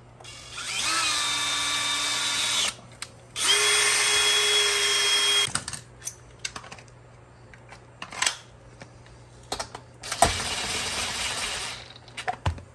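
Cordless brushless drill drilling a hole through the power steering control unit's mounting bracket: two runs of the motor's whine, the first spinning up in pitch and settling, the second steady. Scattered clicks follow, then a shorter, noisier run as the bolt is driven in, and a few more clicks near the end.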